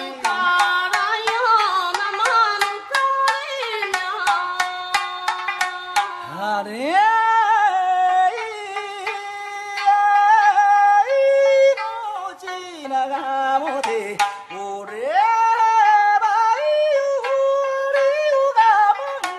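Background music: a melody that slides up and down in pitch, with light percussive taps in the first few seconds.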